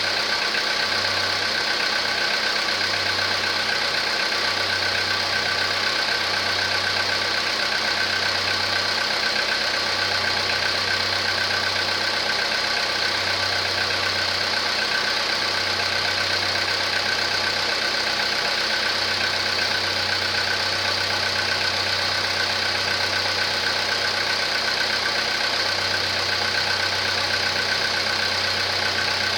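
Volkswagen Polo Sedan petrol engine idling steadily, with a low hum that comes and goes every second or two; the owner suspects piston knock.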